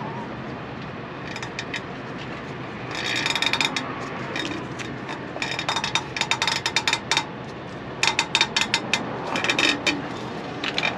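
Ratchet clicking in several runs of rapid clicks as a strap wrench snugs down a spin-on air dryer filter cartridge.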